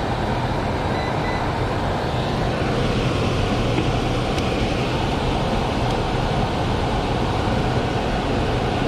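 Newly replaced blower motor in a free-return air handler running steadily with the access door off: a constant rush of air from the squirrel-cage fan over a low hum. It runs smoothly, with no rubbing or grinding.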